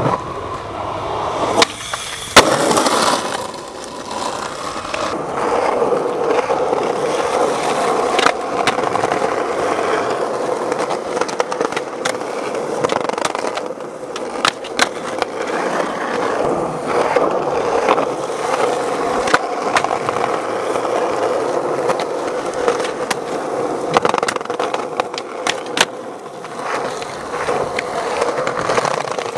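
Skateboard wheels rolling over concrete with a steady rumble, broken by sharp clacks of the board popping and landing and by the board scraping along a concrete ledge.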